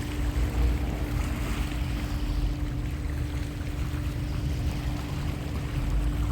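Sea surf washing in, its hiss swelling and easing, with wind buffeting the microphone. A steady low hum runs underneath.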